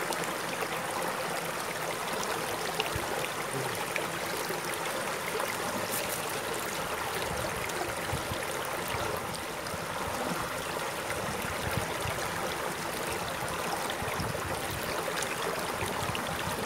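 Shallow rocky stream flowing steadily over stones.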